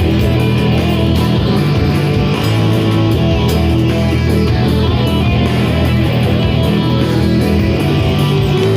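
Electric guitar played continuously with strummed and picked chords, a right-hand warm-up exercise.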